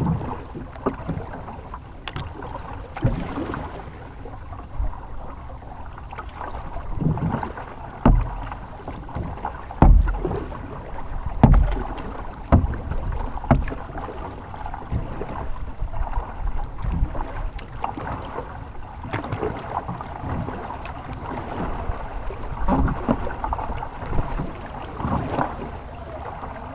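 Paddling a plastic folding kayak: irregular paddle strokes splashing and water slapping against the hull. Several dull thumps come through the boat about a third of the way in.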